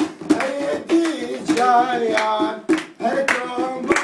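Handclapping in a steady rhythm, a little under two claps a second, accompanying a man's voice singing unaccompanied with long wavering notes.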